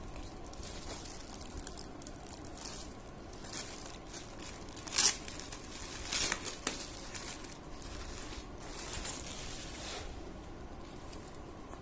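Plastic parcel packaging crinkling as it is handled, with a louder rustle about five seconds in and a shorter burst about a second later.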